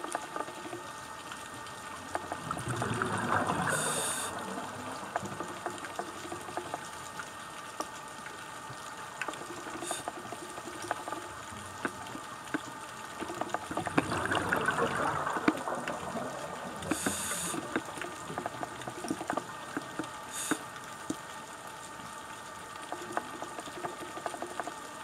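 Underwater sound of a scuba diver's regulator: two swells of exhaled bubbles about eleven seconds apart, with short hisses between them, over a constant crackle of fine clicks.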